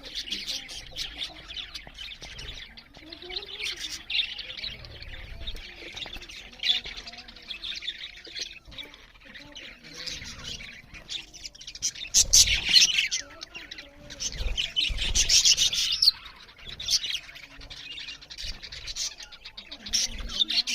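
Budgerigars chirping and chattering non-stop, with two louder, squawkier stretches about halfway through.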